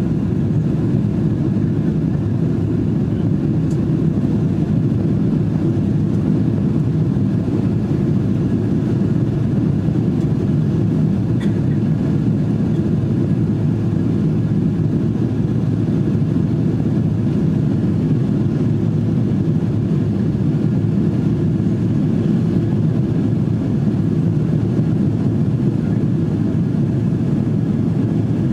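Steady low rumble of a Boeing 777-200's jet engines and airflow, heard from inside the passenger cabin as the airliner climbs through cloud after takeoff.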